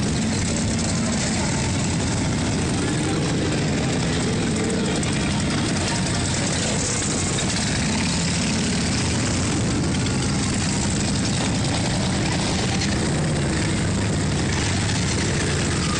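Several Harley-Davidson V-twin motorcycles riding slowly past at low revs, a steady, loud, low engine rumble from the bikes together.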